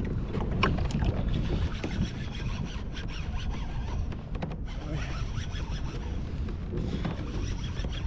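Low wind rumble on the microphone and water lapping at a kayak's hull, with scattered light clicks and knocks.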